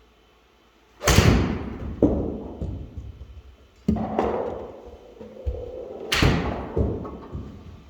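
Sharp golf club strikes on balls, each with an echoing ring-out: two loud hits about a second in and about six seconds in, with smaller knocks and hits between.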